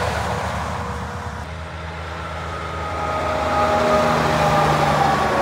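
Heavy trucks passing on a highway: a B-double semi-trailer's engine and tyre noise fades as it moves away. After a cut, a second truck hauling a B-double tanker approaches and grows louder, peaking about four seconds in, with a hum of a few steady tones over the road noise.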